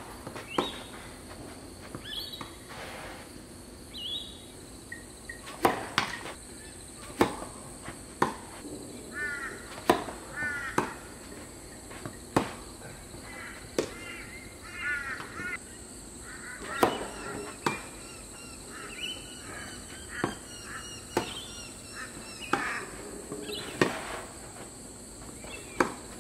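Tennis ball struck by racquets in rallies, sharp pops every second or two. Birds call repeatedly in the background over a steady high insect drone.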